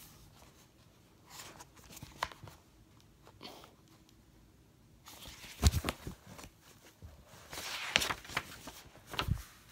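A hardcover picture book being handled and its pages turned. There are faint taps at first, a sharp knock about halfway, a short rustle of paper a little later and another knock near the end.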